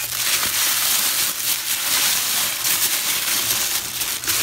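Tissue paper crinkling and rustling continuously as a hand grips a wrapped item and pulls it out of a cardboard box.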